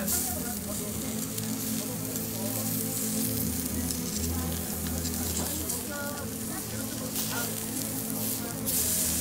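Pork neck and pork belly sizzling on a grill plate over charcoal, a steady sizzle that grows louder near the end.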